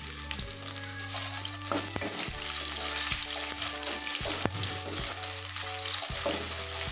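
Freshly added chopped onions sizzling in hot oil in a kadai, with the fried cumin seeds and bay leaves, as a wooden spatula stirs them and now and then scrapes or knocks against the pan. Soft background music runs underneath.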